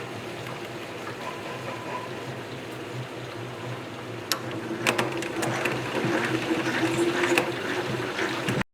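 Tangential honey extractor spinning loaded comb frames: a steady mechanical hum and gear whir with a few sharp clicks and knocks around the middle, cutting off suddenly near the end.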